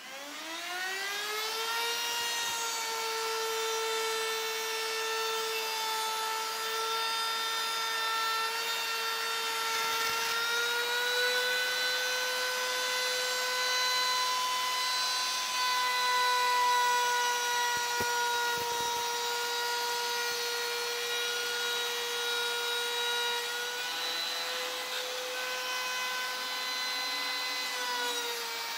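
Electric plunge router starting up, its whine rising quickly over the first two seconds, then running at a steady high pitch.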